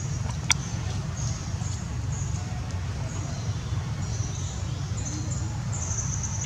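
Outdoor ambience: a steady low rumble under high-pitched trilling that comes and goes, with one sharp click about half a second in.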